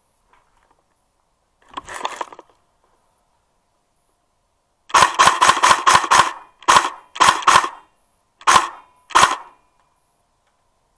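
Airsoft rifle firing BBs. A fainter noise comes about two seconds in, then a quick string of about seven sharp shots, followed by five more shots fired singly and in pairs.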